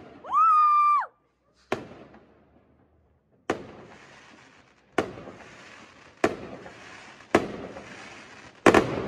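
Aerial fireworks bursting: six sharp bangs, one every second or so, each followed by a crackling hiss that fades out. The last bang is the loudest. A short high-pitched tone sounds in the first second.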